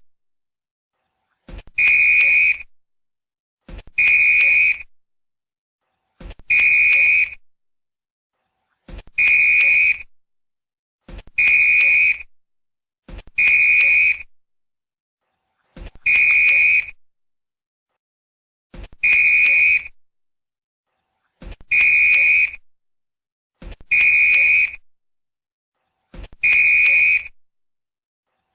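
Football referee's whistle blown in short, sharp blasts, each just under a second long. The blasts repeat about every two and a half seconds, roughly eleven in all, with silence between them.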